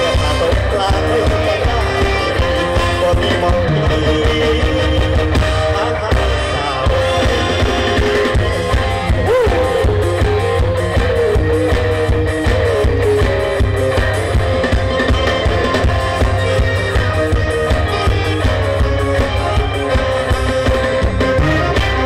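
Loud live band music through a stage PA: a steady drum and bass beat, guitar, and a singer carrying the melody.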